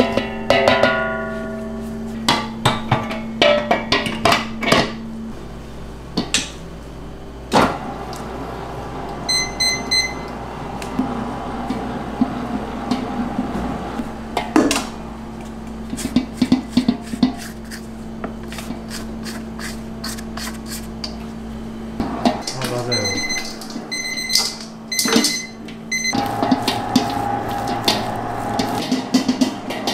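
Stand mixer's motor running with a steady hum while its dough hook kneads bread dough in a steel bowl, the dough knocking and slapping against the bowl over and over. Two sets of short electronic beeps sound, about ten seconds in and again near the end.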